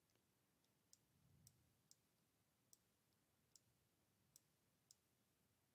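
Faint computer mouse clicks, about seven of them at uneven intervals of half a second to a second, over near silence.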